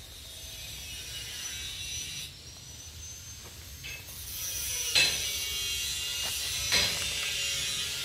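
Two sharp metallic clanks, about five and seven seconds in, over a steady low rumble and a faint high whine.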